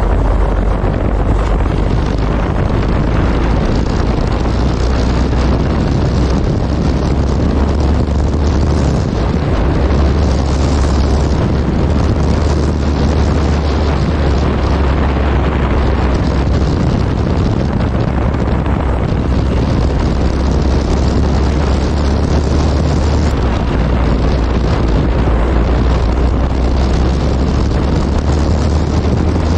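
Motorcycle riding at speed: a loud, steady rush of wind on the microphone over the low drone of the engine, which shifts about nine seconds in and again near twenty-three seconds.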